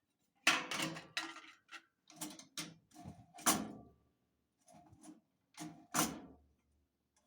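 Sheet-metal parts of an old diesel wick heater being handled: a series of irregular knocks and clatters, about seven in all, one leaving a short metallic ring.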